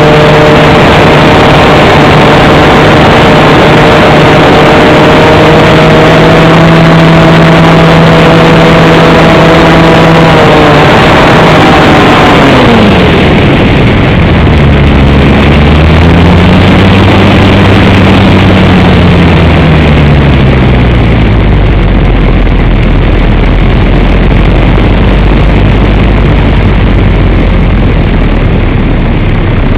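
EasyGlider Pro's electric motor and propeller running at a steady pitch under heavy wind rush on the onboard camera's microphone, very loud. About eleven seconds in, the motor is throttled back and its whine falls away in pitch, leaving the rush of air as the glider glides.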